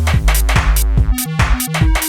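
UK bassline (4x4) electronic dance track: a drum-machine beat with a choppy synth bassline stepping between short notes.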